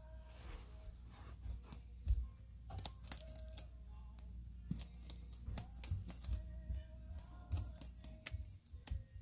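Rabbit shifting and nosing about in a woven dry-grass bed: irregular crisp clicks and crackles of the grass, with a few dull thumps.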